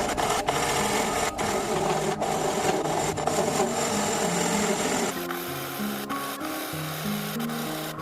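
Hand abrading of wood, a scratchy rubbing noise of repeated strokes, which eases off about five seconds in while background music carries on.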